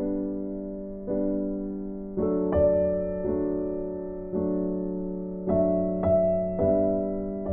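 Slow, gentle piano music: chords struck about once a second and left to ring and fade.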